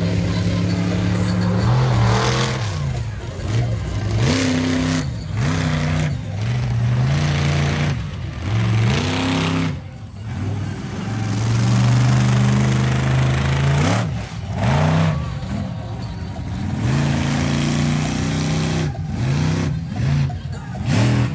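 Monster truck engine revving hard over and over, its pitch surging up and falling back in quick rises, with a longer steady high-revving stretch about halfway through.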